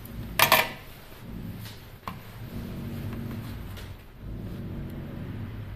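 Hand tools working on a graphics card's circuit board: a sharp scrape and click about half a second in and a smaller click about two seconds in, over a low steady hum.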